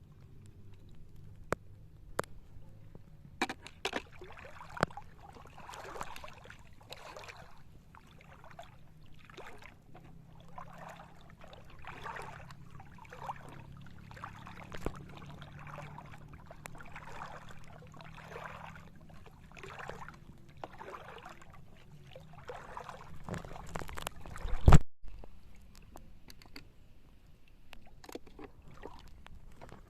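Steps wading through shallow seawater, sloshing about once a second, with a few sharp clicks early on and one loud knock near the end.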